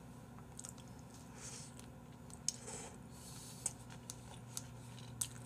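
Faint close-miked eating sounds: soft chewing of noodles, with four or five sharp clicks of chopsticks against a bowl in the second half.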